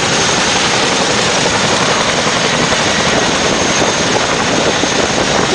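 CH-47 Chinook tandem-rotor helicopter running: loud, steady turbine and rotor noise with a thin high whine.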